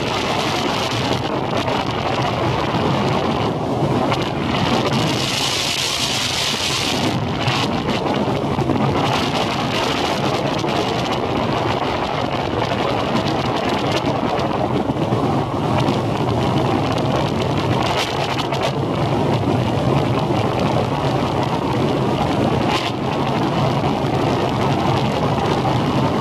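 Motorboat engine running steadily while the boat travels across open water, a constant low hum, with wind buffeting the microphone and a louder stretch of hiss about five to seven seconds in.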